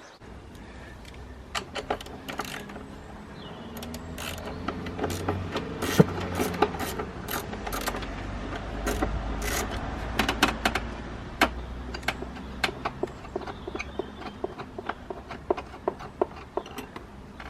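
Spanner working the nut of a car battery's hold-down clamp: irregular sharp metallic clicks and taps as the clamp is loosened, over a low handling rumble.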